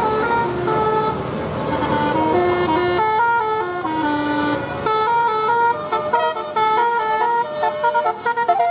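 Bus telolet horn, a Basuri multi-tone air horn, playing a quick melody: clear horn notes that jump from pitch to pitch several times a second, turning choppier near the end.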